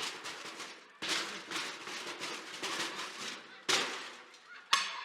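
Theatre audience laughing in loud waves, with sudden sharp swells about a second in and twice near the end.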